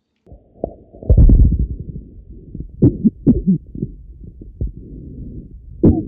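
Coughing heard through a Littmann Core digital electronic stethoscope pressed to a person's back. It comes through muffled and really loud: the biggest cough is about a second in, and several smaller ones follow.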